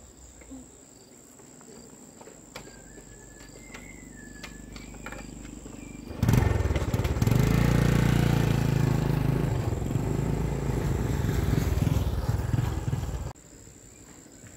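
Crickets trilling steadily, then about six seconds in a motorcycle engine comes in loud and close and runs for about seven seconds before cutting off abruptly.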